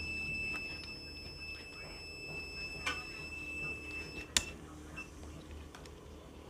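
Car wash timer circuit board's buzzer sounding a steady high-pitched beep that stops about four seconds in. A sharp click follows, then a short beep a moment later.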